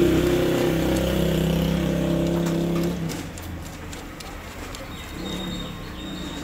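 An engine running with a steady low hum that cuts off about three seconds in, followed by faint, repeated bird chirps.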